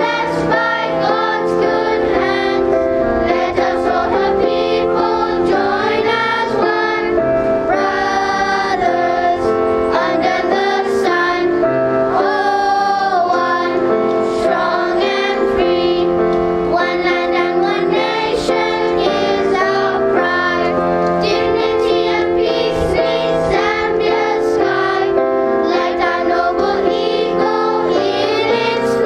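A children's choir singing a song together, continuously and at a steady level.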